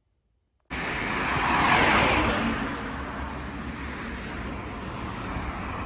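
Road traffic: the hiss of a passing vehicle that starts abruptly just under a second in, swells, then eases to a steady background of traffic noise.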